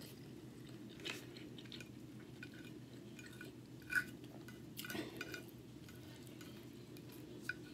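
Close-mic chewing of soft food, with a few sharp clicks and scrapes of a fork against a plate as the last rice is gathered. The loudest click comes about four seconds in. A steady low hum sits underneath.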